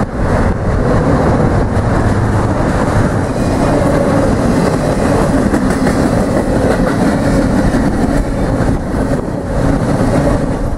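Double-stack container well cars of a freight train rolling past, a loud, steady rumble of steel wheels on rail with a clicking clatter over the rail joints.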